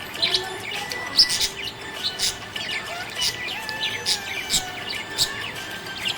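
Budgies chirping: rapid short, sharp chirps over softer warbling chatter.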